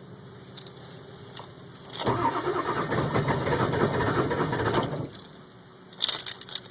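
Starter cranking a 2002 Ford 7.3 L Powerstroke V8 turbo-diesel for about three seconds, and the engine does not fire. It is a hard cold start: the engine acts like it wants to catch but isn't starting.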